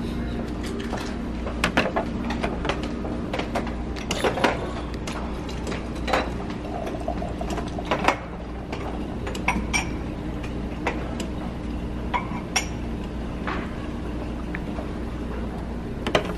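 A glass tumbler clinking against a self-serve drink dispenser's drip tray while the dispenser pours a fizzy drink into it, over a steady low hum.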